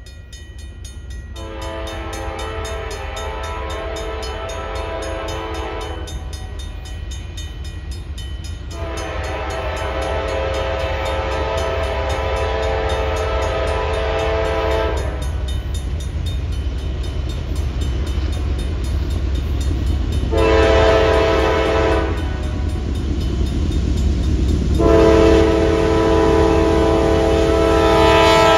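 CPKC freight locomotive's air horn sounding the grade-crossing signal: two long blasts, a short one, then a long one. Under it, the low rumble of the train grows steadily louder as it approaches.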